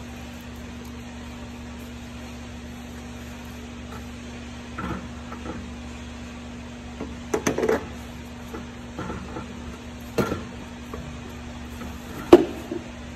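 Scattered knocks and clatters of parts and tools being handled by hand, a handful in all, with the sharpest knock near the end, over a steady low hum.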